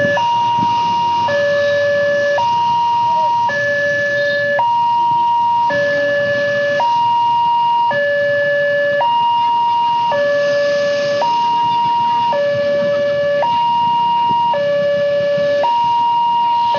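Railway level-crossing warning siren sounding a two-tone hi-lo alarm. It switches between a higher and a lower tone about once a second over a steady high tone, warning that a train is coming and the crossing is closed.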